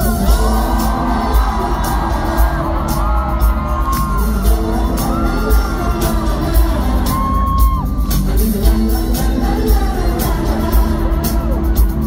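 Live pop concert: a singer's voice gliding over a band with heavy bass and a drum beat, filling a large hall.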